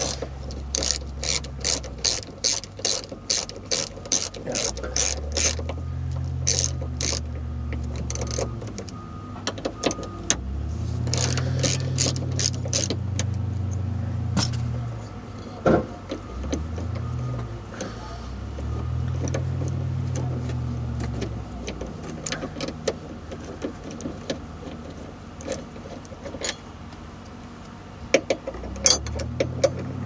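Socket ratchet clicking as a 10 mm bolt is loosened: a steady run of swings about twice a second, then shorter runs and scattered clicks. A low drone swells and fades several times underneath.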